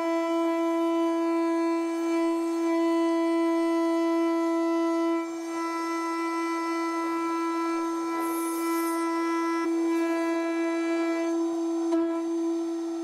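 CNC router spindle milling a plastic sheet with an end mill: a steady, high whine with many overtones, dipping slightly in loudness about five seconds in. The spindle speed was too high for this plastic, which melted at the cutting edge.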